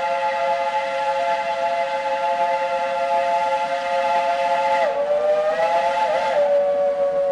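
Steam locomotive whistle blowing a long, steady chime of several notes at once; about five seconds in it breaks off briefly and sounds again, its pitch sagging and rising as the second blast goes on.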